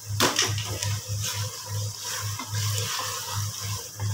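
Wooden spoon stirring beef korma in a pressure-cooker pot, with a few scrapes against the pot, while the thick masala sizzles and bubbles as its last water cooks off. A low hum pulses on and off underneath, about three times a second.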